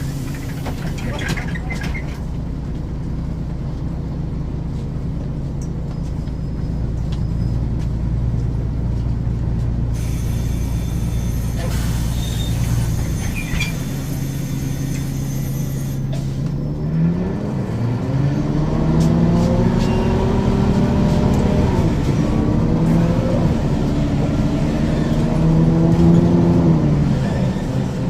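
Ikarus 435 bus engine idling steadily, with a hiss of air in the middle. About 17 seconds in it pulls away: the engine note rises, drops back at a shift of the ZF automatic gearbox, then rises again and drops at another shift near the end.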